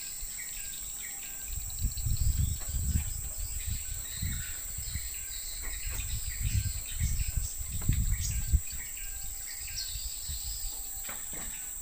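A steady high-pitched insect drone with scattered bird chirps. Uneven low rumbling starts about two seconds in and comes and goes until near the end.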